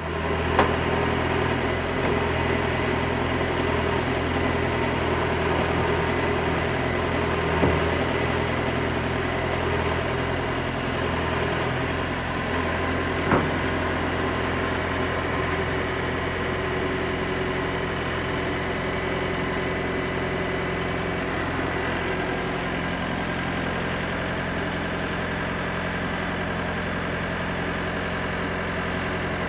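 Wood-Mizer LT50 portable band sawmill's engine running at a steady speed, with a few brief knocks about a second in, around eight seconds and around thirteen seconds.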